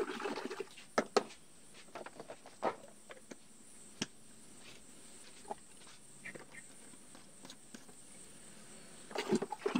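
Hand stirring liquid in a plastic bucket, sloshing at the start and again near the end. In between, a few small sharp clicks and taps of a plastic bottle and its cap being handled while a dose of spreader is measured out. A faint steady insect drone sits high in the background.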